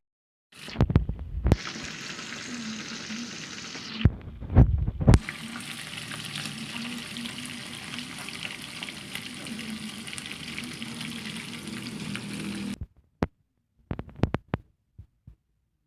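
Food sizzling as it fries in a pan, a steady hiss, broken twice by bursts of loud knocks and clatters against the pan, about a second in and again about four to five seconds in. The sizzling cuts off abruptly near the end, followed by a few sharp clicks.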